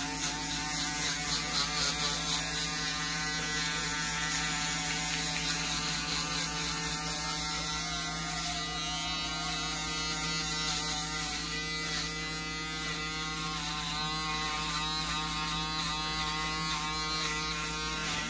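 Electric foil shaver running steadily as it is passed over the side of the head, taking off the last tiny hairs to crisp up the finished haircut.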